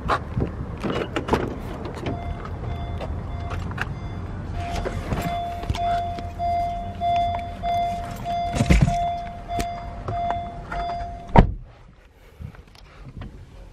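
Clicks and knocks of someone getting into a Honda car, with the car's open-door warning chime beeping steadily at nearly two beeps a second. A loud door slam near the end cuts the chime off.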